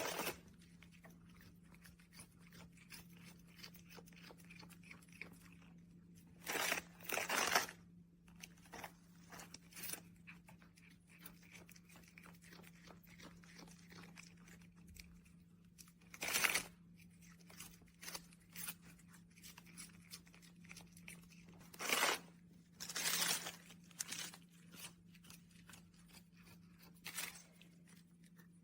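Granular crunching and scratching in cat litter, coming as a handful of short bursts, two of them close together about a third of the way in and two more near the end, over a faint steady low hum.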